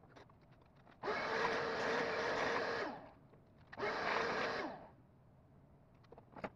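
Shop vacuum switched on twice, about two seconds and then about one second, each run ending with the motor winding down.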